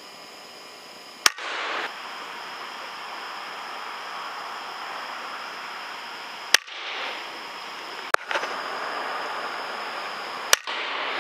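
Air rifle shots: four sharp cracks, unevenly spaced, over a steady background hiss.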